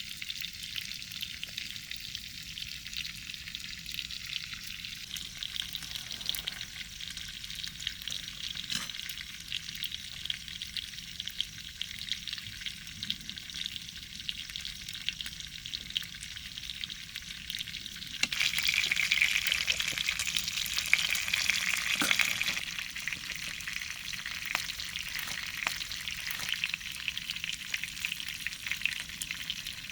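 Food frying in a pan, a steady crackling sizzle that grows louder for about four seconds roughly two-thirds of the way through.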